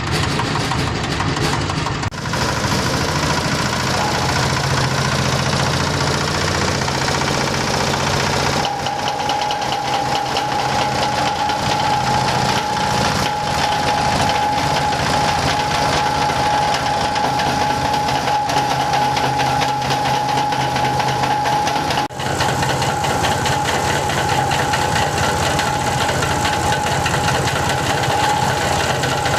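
Foam and cloth shredding machine running steadily, its motor and cutters making a dense mechanical noise. A steady high whine joins in about nine seconds in, and the sound dips briefly twice.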